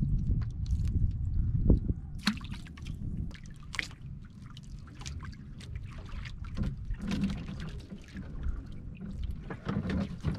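Seawater lapping and sloshing against a small outrigger boat's hull and bamboo floats, with many small splashes and drips from about two seconds in. A low rumble, likely wind on the microphone, is loudest in the first two seconds.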